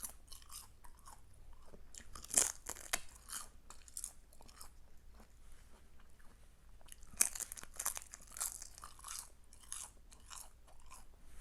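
Close-up crunching and chewing of thin, crisp seasoned roasted seaweed sheets. The crunches are irregular, coming in bouts about two seconds in and again from about seven to nine seconds in.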